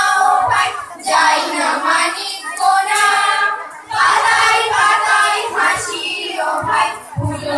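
A group of schoolgirls singing a song together into microphones, in sung phrases with short breaths between them.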